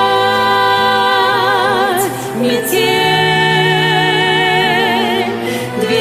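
A woman singing long held notes with wide vibrato over a pop backing track: one sustained note, a short break about two seconds in, then a second long note.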